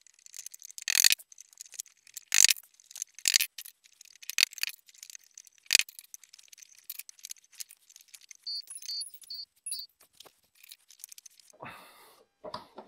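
Wooden beehive frame top bars knocking and clacking as they are pressed into the side bars in a plywood jig: five loud, sharp wooden knocks in the first six seconds among lighter clatter. A few short, high beeps come about eight and a half to ten seconds in.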